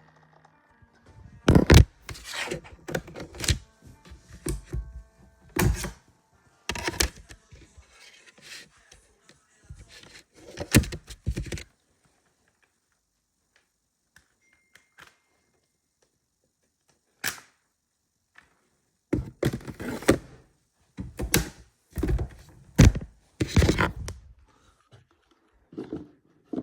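Recorded car crash sound effects played back: a run of crashes and impacts, each a sharp strike with a short rumbling tail, then a pause of several seconds broken by one hit, then another run of crashes.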